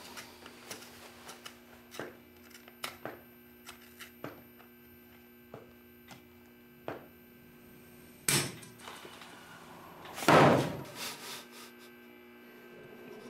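Scattered faint clicks over a steady low hum, then a sharp knock and, about two seconds later, a heavier thump.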